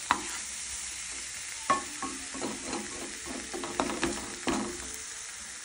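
Chicken pieces sizzling in olive oil in a non-stick frying pan as a spatula turns them. A steady sizzle runs throughout, broken by sharp taps and scrapes of the spatula on the pan, the loudest about a second and a half in.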